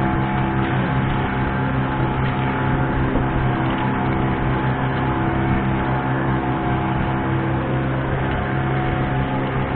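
Boat engine running steadily under way, an even drone that holds one pitch throughout.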